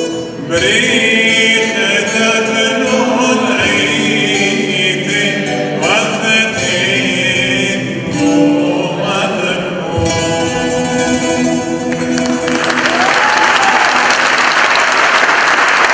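A man and young girls singing with a plucked long-necked lute. The song ends about three quarters of the way through, and audience applause follows.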